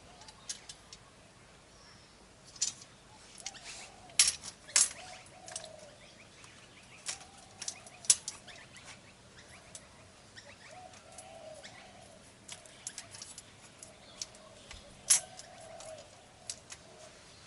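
Scattered sharp metallic clicks and clinks of tools and seat-rail parts being handled, the loudest a few seconds in, about eight seconds in and near the end. A pigeon coos repeatedly in the background.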